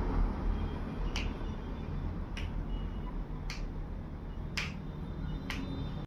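Five sharp clicks about a second apart, over a low steady hum.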